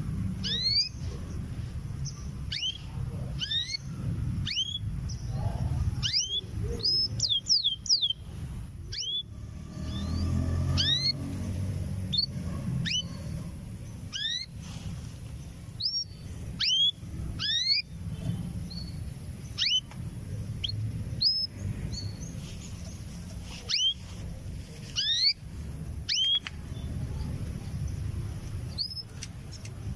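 Female canary giving short single chirping calls, one every second or two with a quick run of several, over a low background rumble: a hen calling for a male, a sign that she is ready to breed.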